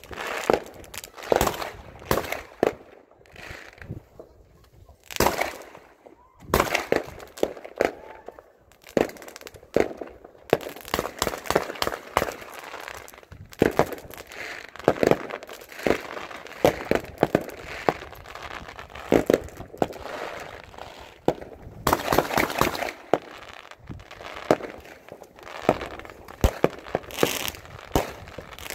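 Aerial fireworks going off, a steady string of bangs and crackling bursts, at times in quick dense volleys.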